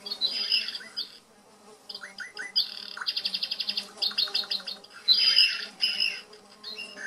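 Recorded farmyard sound effects: songbirds chirping in repeated short phrases, with a rapid trill about two and a half seconds in, over a steady low buzz of bees.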